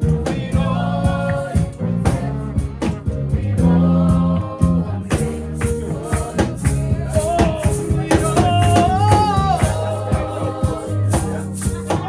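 Music with singing over a steady beat, with shaker-like percussion and a bass line.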